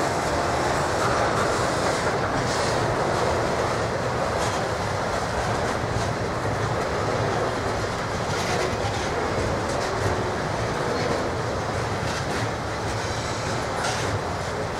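Intermodal freight train's container well cars rolling past at close range: a steady rumble and rush of steel wheels on rail, with a sharp clack every couple of seconds.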